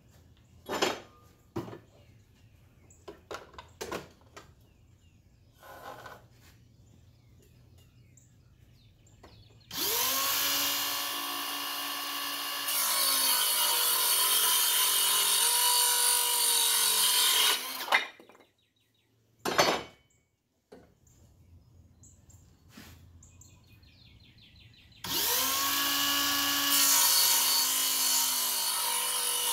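Bauer 20-volt cordless circular saw with a 24-tooth framing blade spinning up and cutting through wood for about eight seconds, then stopping; a sharp knock follows, and the saw starts and cuts again near the end. Light clicks and handling noise come before the first cut.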